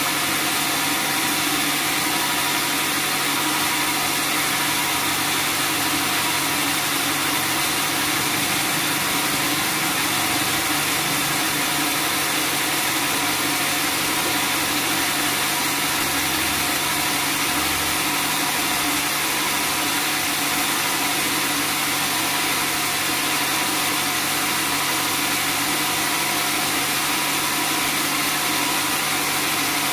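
Bandsaw sawmill running steadily, a constant machine hum with a hiss above it and no change in pace.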